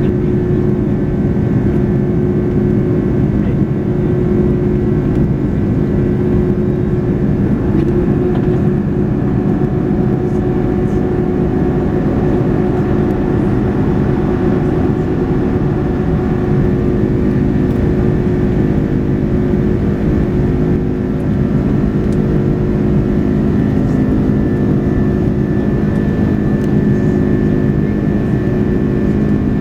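Turbofan engine and airflow noise heard inside the cabin of a twin-engine jet airliner: a loud, steady hum carrying several fixed engine tones, unchanging throughout.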